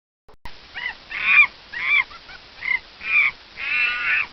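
A bird giving a rapid series of loud calls, about one every half second, starting just after a silence.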